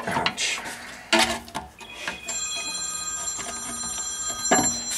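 Metal clicks and knocks of a tool working the rear brake caliper piston. Then a steady ringing of several high tones for about two seconds, cut off by a knock.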